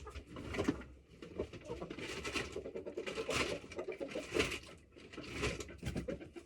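Backyard chickens clucking and murmuring, a steady stream of short calls with sharper sounds about once a second.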